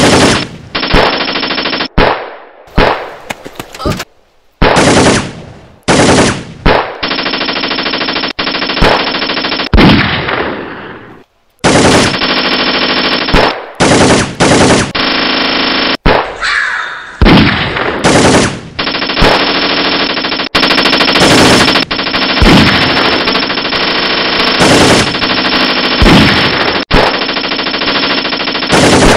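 Automatic rifle fire, dubbed in as a sound effect: long bursts of rapid machine-gun shots that cut in and out abruptly, with a few short lulls where the firing dies away, one near the middle falling almost silent.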